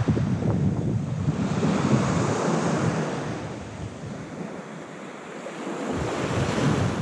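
Surf washing onto a beach, swelling about two seconds in and again near the end, with wind buffeting the microphone as a low rumble.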